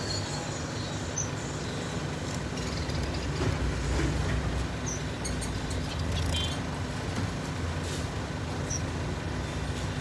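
A steady low rumble of background noise, with a few faint short high chirps from the caged birds.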